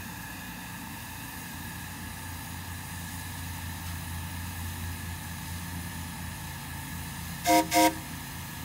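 Two short toots on the whistle of an oil-fired 10-wheeler (4-6-0) ridable-scale live steam locomotive, near the end. They sound over a steady low rumble from the locomotive.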